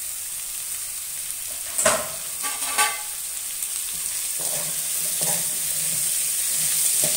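Oil sizzling steadily in a hammered aluminium kadai under freshly added diced beetroot and potato, growing a little louder after the midpoint. Two sharp metallic clanks about two seconds in, then lighter scrapes and knocks of a spatula stirring the vegetables against the pan.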